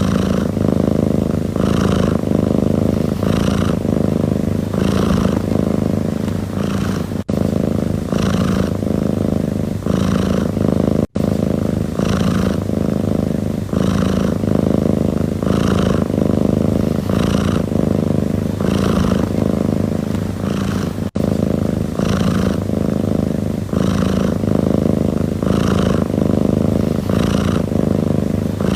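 Domestic cat purring steadily and close up, a continuous low rumble that swells and eases with its breathing about once a second. The sound cuts out for an instant three times.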